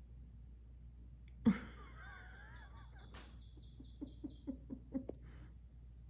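A sudden thump about a second and a half in, then bird calls from a bird video playing on a TV: wavering chirps and a fast high chatter. Near the end come a few light taps, about four a second.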